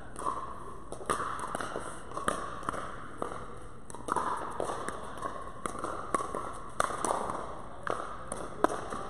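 Pickleball rally: composite paddles striking a plastic pickleball back and forth in sharp clicks about every half second, with ball bounces and shoe steps on the hard court, in a large indoor hall.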